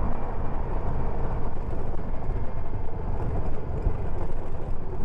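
Motorcycle being ridden, its engine and the road and wind noise of riding making a steady, unbroken rumble.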